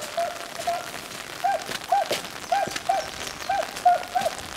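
Pack of beagles giving tongue on a rabbit track: a string of short, evenly paced chop barks, about two or three a second. Rain patters steadily underneath.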